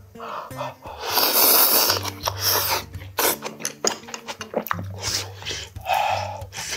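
A person slurping a mouthful of hot shabu-shabu off chopsticks, a loud rush of air about a second in, then chewing with many wet clicks and lip smacks, and a short huff of breath near the end.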